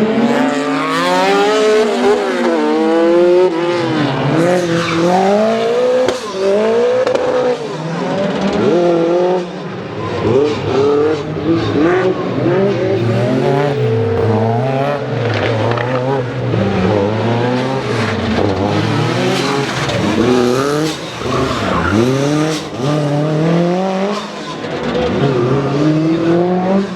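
Race car's engine revving loud, its pitch climbing and dropping over and over as it is driven through gears and turns, with tyre squeal.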